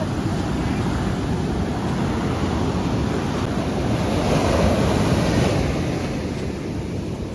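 Ocean surf washing onto the beach, one wave swelling to its loudest about four to five seconds in and then easing off.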